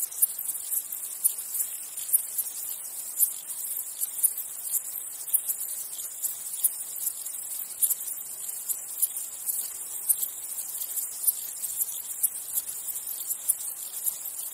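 Insects chirping: a steady, very high-pitched buzz with sharp clicking pulses a few times a second, spaced unevenly.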